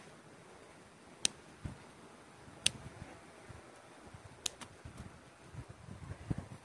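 Scissors snipping the small twigs of a Streblus asper bonsai: four sharp snips, the last two in quick succession, with leaves rustling near the end.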